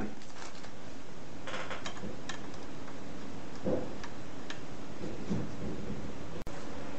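A few faint light ticks and clicks from hands handling the ceiling fan's wires, over a steady background hiss.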